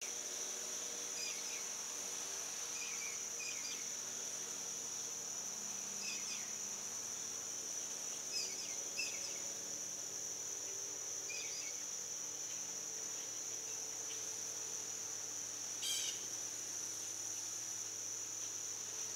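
Steady high-pitched insect chorus, with short bird chirps every few seconds.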